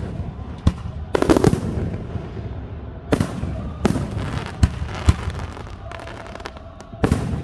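Aerial firework shells bursting at irregular intervals, a series of sharp bangs a second or so apart, some coming as quick rattling clusters of crackling reports.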